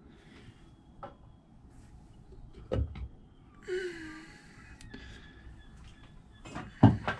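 Metal clunks and a short scrape as the valve cover is lifted off a Yanmar marine diesel engine, with the loudest knocks near the end.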